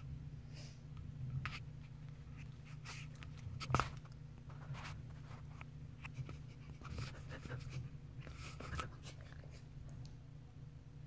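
Faint scratchy rustling as a long-haired cat pushes into a plush fabric cat bed and moves about on a rug, with one sharper click about four seconds in.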